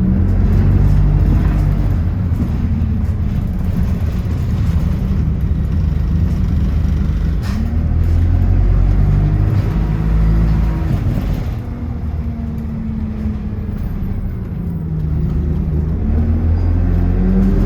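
Bus engine running under way, its low hum rising in pitch as it accelerates, once around the middle and again near the end, with a quieter stretch between.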